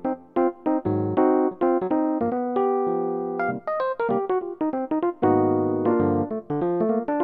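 Yamaha S03 synthesizer playing a piano-type factory voice: chords and melody in both hands over bass notes, each struck note decaying, with one chord held for about a second near the middle.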